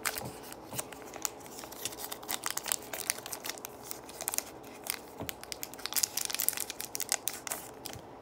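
Foil wrapper of a Pokémon booster pack crinkling and tearing in irregular crackles as it is pulled open by hand and the cards are slid out.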